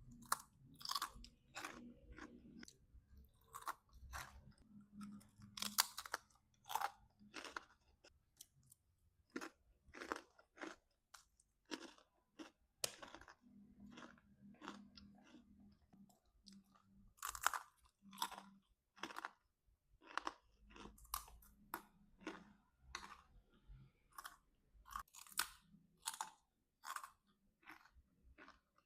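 A person chewing crunchy food close to the microphone, with sharp, irregular crunches roughly one or two a second.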